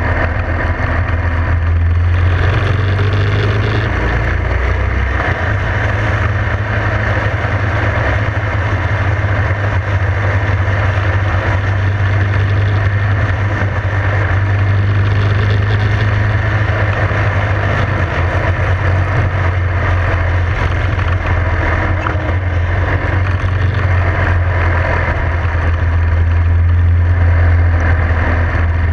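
Motorcycle engine running steadily at cruising speed, heard from the bike itself, with wind rushing over the microphone. The low engine note strengthens again in the last few seconds.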